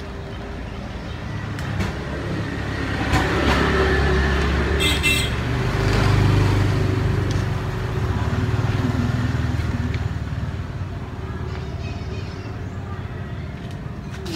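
A motor vehicle passing. Its low engine rumble swells over the first few seconds, peaks about midway, then fades.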